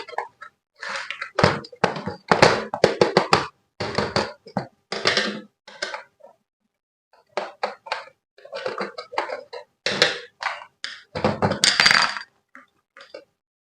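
Handling noises of an RC toy car and its packaging: irregular knocks, thunks and clinks of hard plastic being handled and set down, with a short pause in the middle.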